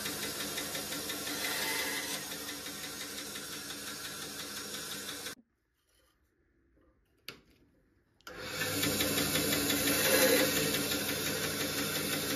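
Electric power saw running as it cuts a dry branch to length: a steady motor sound that stops abruptly about five seconds in and starts again about three seconds later.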